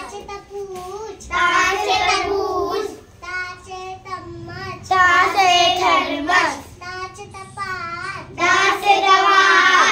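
A young child singing loudly in phrases of a few seconds each, her pitch wavering up and down.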